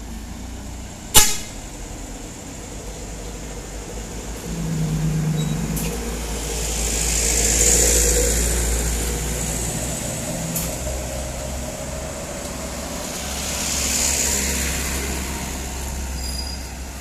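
Loaded sugarcane trucks' diesel engines running under load as the trucks pass close one after another, the sound swelling as each goes by, loudest about 8 s and again about 14 s in. A short low horn sounds for about a second near 4.5 s, and a single sharp click comes about a second in.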